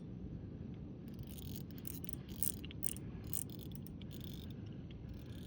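Fishing reel's drag buzzing in rapid bursts as a hooked fish, here a channel catfish, strips line off a loosely set drag, over a low steady rumble.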